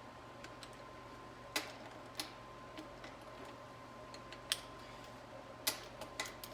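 Torque wrench set to 18 ft-lb giving a few sharp, irregularly spaced clicks as the transmission pump bolts are re-checked, each click showing a bolt has reached torque.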